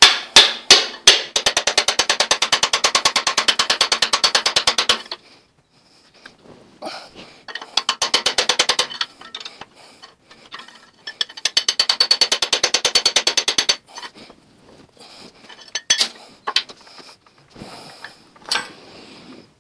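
Steel bar being struck hard, metal on metal, to knock a seized piston crown out of its bore in a Ford flathead V8 block. A handful of heavy separate blows, then three long runs of rapid blows at about ten a second, then a few scattered knocks near the end.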